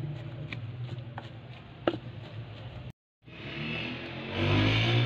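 Wooden pestle pounding boiled chana dal and chicken in a wooden mortar: a few irregular soft knocks in the first two seconds over a steady low hum. The sound cuts out briefly about three seconds in.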